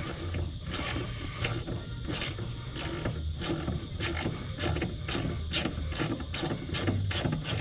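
Socket ratchet clicking in repeated runs as it is swung back and forth. It is unscrewing a broken mower-blade spindle bolt, freed but still in the hole, through a Torx bit tapped into the drilled-out bolt.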